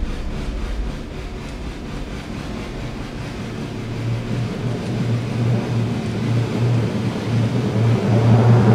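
Dark ambient horror-score drone: a deep steady hum under a rising rumble, swelling louder over the last few seconds.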